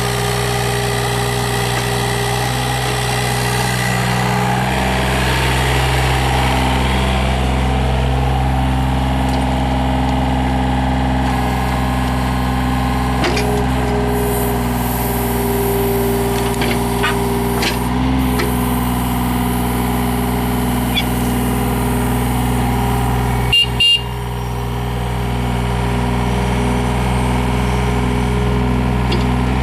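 Yanmar VIO35-3 mini excavator's three-cylinder diesel engine running steadily. Its note strengthens about four seconds in as the hydraulics are worked. A shifting hydraulic whine runs over it, with a few clanks midway and a brief sharp noise near the end.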